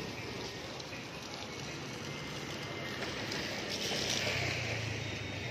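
Wet-street traffic ambience: a steady wash of noise, with a motor vehicle's engine and its tyres hissing on the wet road swelling up about four seconds in.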